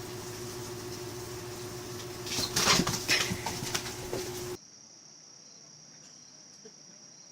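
A steady hum with a burst of loud rustling, scuffling noise lasting about two seconds. Then a sudden cut to a quieter background with a steady high-pitched insect drone.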